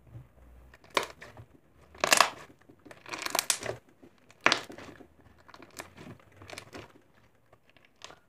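Fluffy slime crackling as it is pressed down and pulled apart with a wire kitchen utensil. There are a few loud crackly bursts in the first five seconds, then smaller ones.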